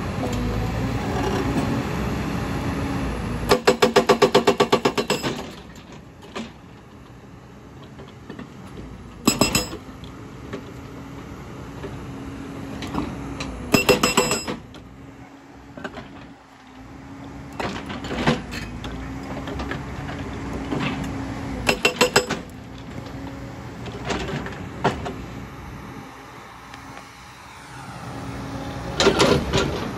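JCB tracked excavator's diesel engine running steadily while its hydraulic breaker hammers on rock in several short bursts of rapid blows, about ten a second, the longest burst about four seconds in.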